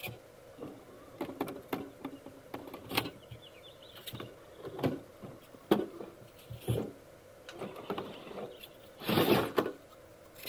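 Traxxas TRX-4 Defender RC crawler working over rocks: short, irregular bursts of electric whirring from its steering servo and drive motor, mixed with knocks of the tyres and body against stone. The longest, loudest burst comes about nine seconds in.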